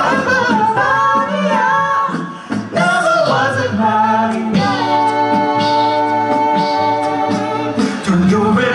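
Male a cappella vocal group singing in close multi-part harmony with a low bass voice beneath. About halfway through they hold one long chord for roughly three seconds, then move on again near the end.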